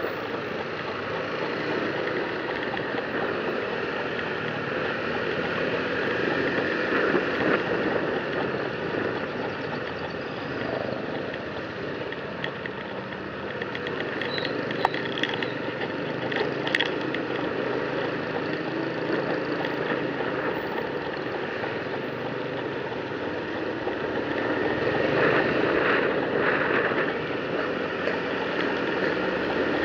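Motor scooter riding along a street: its engine running steadily under road and traffic noise, with a couple of short sharp ticks around the middle.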